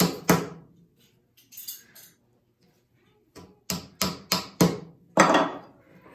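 Claw hammer driving nails all the way through a small wooden strip held in a vise, the nails becoming the gauge's scoring points. Two blows, then after a pause a quick run of about six blows, the last the loudest.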